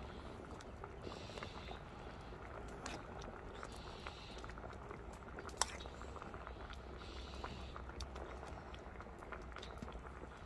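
Mackerel-and-radish braise simmering in its cloudy rice-water broth in a wide cast-iron pan: a soft, steady bubbling with small crackles. One sharp click near the middle, as the spoon works the seasoning paste.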